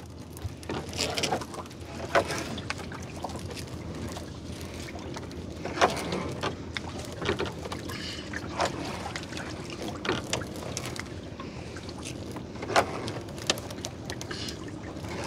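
A gill net being hauled by hand over the side of a wooden boat, water splashing and streaming off the mesh into the river, with scattered sharp knocks.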